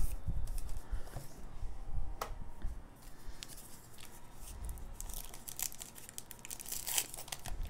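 Foil trading-card pack being handled and torn open: wrapper crinkling and tearing, with a few sharp clicks and the crinkling growing busier in the last few seconds.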